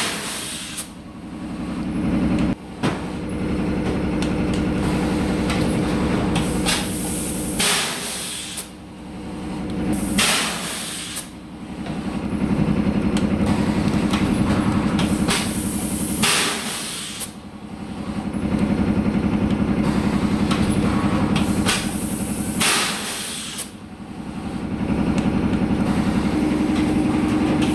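Semi-automatic PET bottle blow-moulding machine cycling: a steady machine hum swells and fades, broken about every six seconds, often in pairs, by short hisses of compressed air as the bottles are blown and the mould vents.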